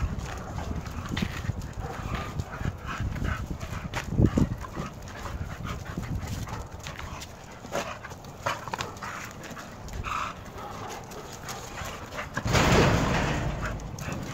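Bully-breed dogs play-fighting on concrete: paws scuffling and claws clicking in many short taps, with panting. A louder scuffle of about a second comes near the end.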